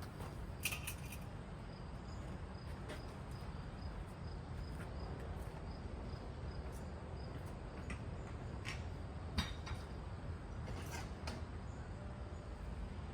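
Cheap hugger-style ceiling fan running at its top speed: a steady low hum with a few light clicks.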